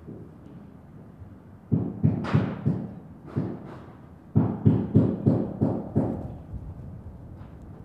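Carpenter's hammer striking timber on a wooden house frame: about four blows, a single blow, then a quicker run of about eight blows.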